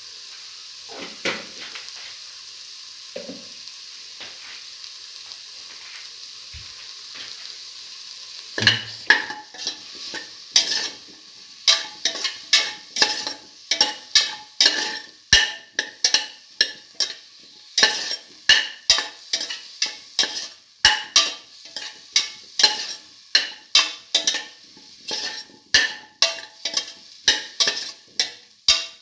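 Potato cubes and spices frying in a steel pot with a steady sizzle. About nine seconds in, a spoon starts stirring them, scraping against the pot in quick, repeated strokes.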